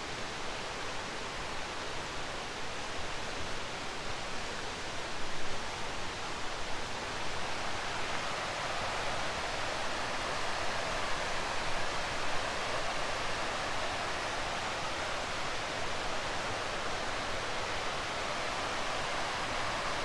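Mountain river rushing over rocks and small falls, a steady rush of water that grows fuller about eight seconds in.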